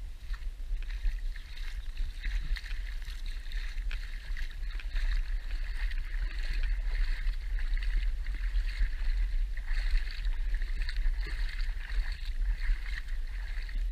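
Shallow lagoon water lapping and washing over sand at the water's edge, a steady crackling wash with a low rumble underneath.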